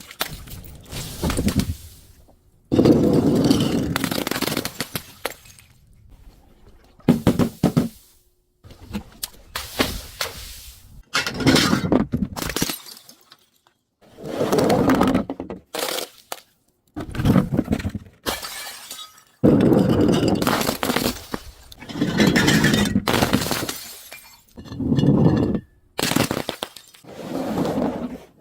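Glass bottles breaking and crunching in about a dozen separate bursts, each one to three seconds long, with short pauses between.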